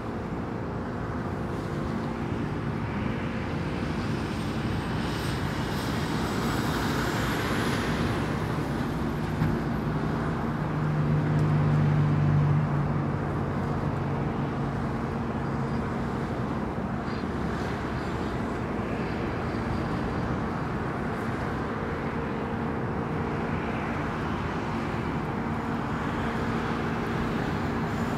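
Steady highway traffic, many vehicles running together, with one louder low engine swelling and passing about a third of the way through.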